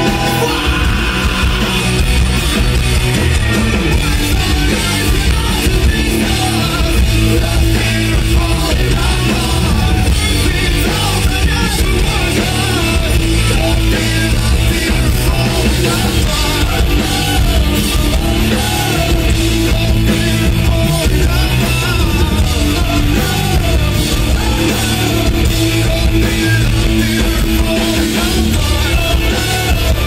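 Live rock band playing steadily at full volume: electric guitars, bass guitar and drum kit, with a voice singing over them.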